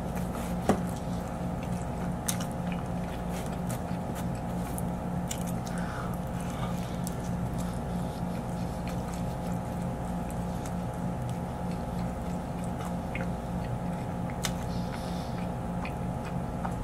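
A man chewing and biting pizza close to the microphone, with scattered sharp mouth clicks, over a steady low hum.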